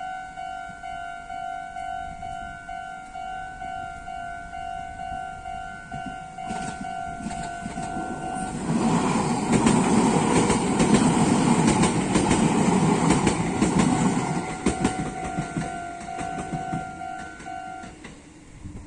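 Japanese railroad crossing warning bell dinging in a steady repeating pattern, warning that a train is coming. About eight seconds in, a Meitetsu train passes over the crossing for roughly six seconds, loud, with wheels clattering over the rails. After the train the bell is heard again, then it stops near the end as the crossing clears.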